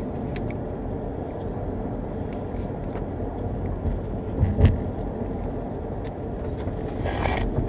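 Steady low rumble inside a car, with scattered small clicks and rustles from a snack pouch being handled, a soft low thump about four and a half seconds in, and a brief louder rustle near the end.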